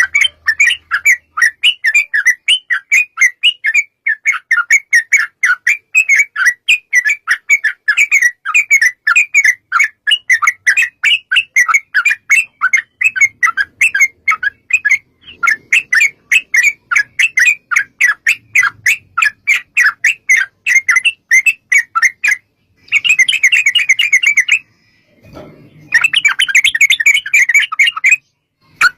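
Yellow-vented bulbul (trucukan) chattering in a long, fast run of repeated notes, about four to five a second. Near the end it breaks into two denser bursts of rapid chatter. This is the long 'ropel' song used as a lure to make other trucuk birds answer.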